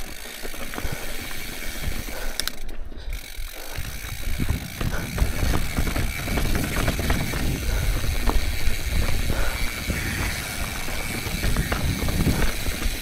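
Mountain bike rolling down rocky slickrock, its tires knocking over rock steps while the chain and frame rattle and the rear hub ticks as it coasts. The knocks and rattles come thick and fast from about four seconds in.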